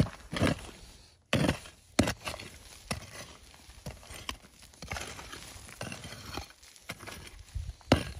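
Short-handled pick striking dry, stony red soil again and again at uneven intervals, each blow a sharp knock followed by soil and small stones crumbling.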